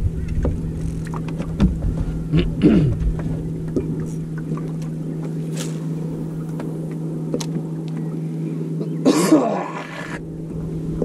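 Boat's bow-mounted electric trolling motor humming steadily at one even pitch, with wind rumbling on the microphone for the first few seconds. A short, louder burst of noise comes about nine seconds in.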